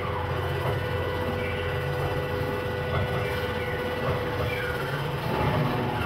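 Live electronic noise and drone music: a dense, steady rumble with a held mid-pitched tone that fades out about five seconds in, and faint sliding tones above it.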